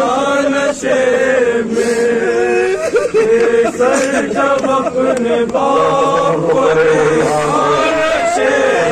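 A group of men chanting a noha, a Shia lament, in unison, with a lead reciter's voice over a microphone joining them about halfway through.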